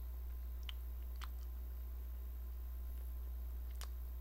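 Three faint wet mouth clicks and lip smacks from someone eating honey, over a steady low hum.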